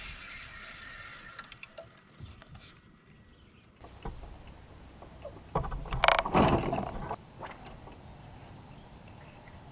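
Fishing reel mechanism clicking and whirring as it is worked, with a louder cluster of clicks and knocks about six seconds in.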